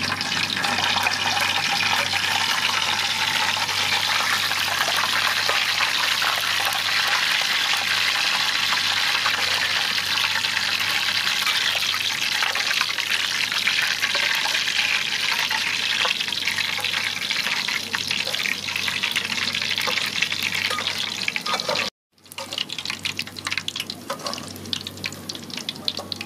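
Dried red chilies frying in hot oil, a loud steady sizzle. It cuts off suddenly near the end, followed by softer, scattered crackling.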